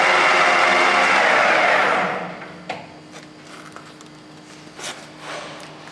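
A Microcut Buffalo-Seiki 1740 centre lathe runs steadily, then winds down to a stop about two seconds in. After that, a faint hum remains, along with a few sharp clicks and knocks as the headstock levers are worked by hand.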